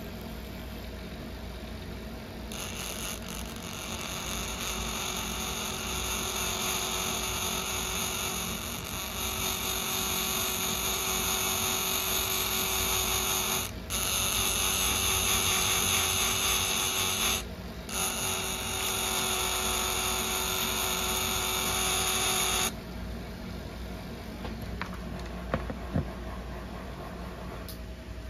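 A small electric motor whining steadily. It starts a couple of seconds in, drops out briefly twice, and cuts off suddenly a few seconds before the end.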